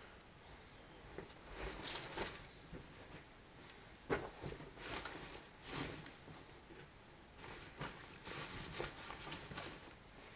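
Clothes rustling as they are handled and moved on a carpeted floor during packing, in irregular bursts, with one sharp knock about four seconds in.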